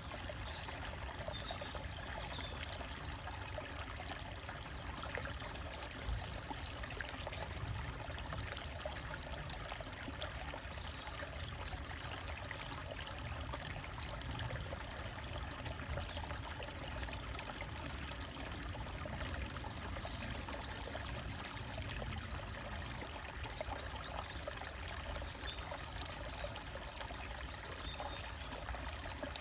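Small forest stream trickling over rocks in a steady, even rush, with birds chirping faintly now and then.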